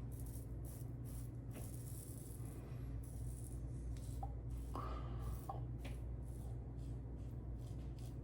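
Tatara Amakuni stainless single-edge safety razor scraping through lathered stubble in a series of short strokes, over a steady low hum.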